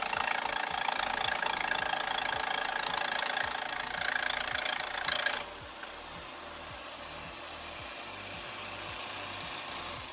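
Jigsaw with a plexiglass-cutting blade running and cutting plexiglass. About halfway through, the sound drops abruptly to a quieter, steady whir, which fades near the end.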